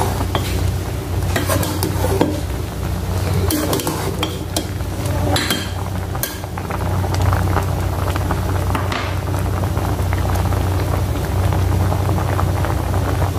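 Metal ladle stirring a boiling vegetable stew in a metal pot, with scattered clinks and scrapes against the pot. A steady low hum runs underneath.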